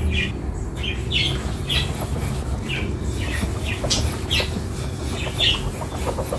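Chickens clucking and squawking in short calls, one every half second or so, over a low steady hum.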